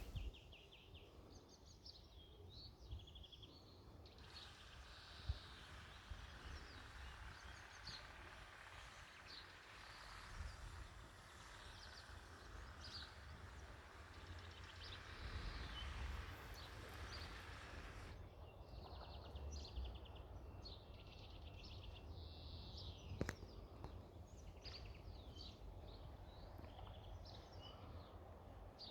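Faint outdoor ambience of birds chirping and singing, over a low wind rumble. A steady hiss covers the birds for a stretch in the middle and cuts in and out abruptly. There is one sharp click near the end.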